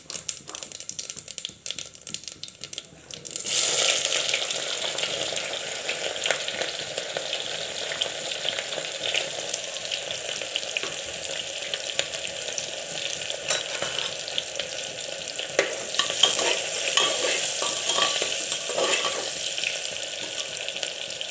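Cumin seeds crackling in hot oil and ghee in a pressure cooker pot. About three and a half seconds in, chopped onions go into the oil with a sudden loud sizzle that carries on as they are fried and stirred with a ladle, which scrapes the pot now and then.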